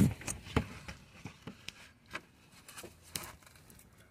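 Close handling noise: scattered light clicks, taps and rubs as hands and the camera move around the slack auxiliary drive belt and its pulleys. There is a louder knock right at the start, and the clicks grow fewer after about two seconds.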